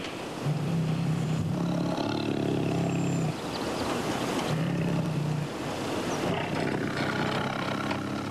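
Male Siberian tiger growling low and steadily in long stretches, with a break around four seconds in and rougher snarling sounds near the end. It is a sign of the male's displeasure after the female rebuffs him.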